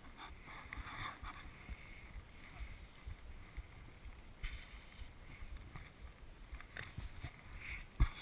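Faint, irregular low rumble and scattered small ticks, with one sharp crack just before the end.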